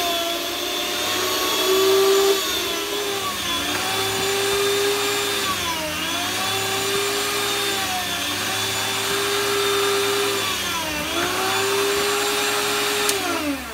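Electric meat slicer running. Its motor dips in pitch several times, once for each pass of the frozen beef through the blade, then winds down when it is switched off at the end.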